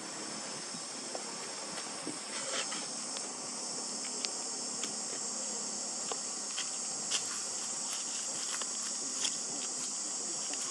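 Steady, high-pitched chorus of insects shrilling, with scattered faint clicks and crackles.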